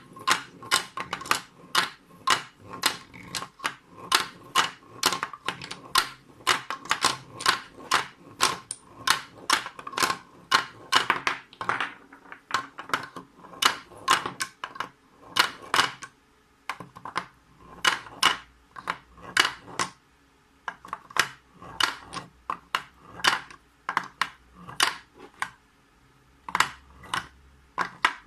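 Hard, sharp clacks in an uneven run of about two a second, with short pauses: 18650 cells knocking against each other and the plastic as they are loaded into and roll through a 3D-printed battery dispenser.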